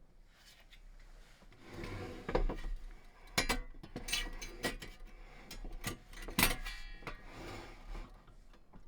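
Small objects being handled at close range: a scatter of light clicks and knocks. The sharpest knock, about six and a half seconds in, is followed by a brief ringing clink.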